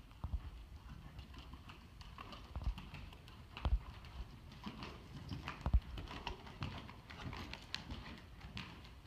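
Hoofbeats of a ridden horse moving over sand arena footing: an uneven run of soft thuds and clicks, with a few louder low thumps.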